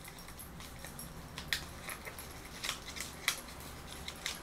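A few scattered sharp little clicks and taps of a plastic e.l.f. blush compact and its packaging being handled while she works at opening it, over a faint low hum.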